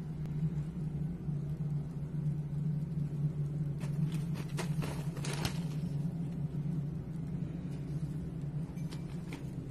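A steady low hum throughout, with a few brief crackles about four to five and a half seconds in from a cat's paws on a snow-covered plastic tarp.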